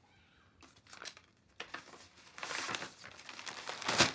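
Stiff paper talisman rustling and crinkling as it is handled and unfolded, in a run of short rustles that grow louder, the loudest just before the end.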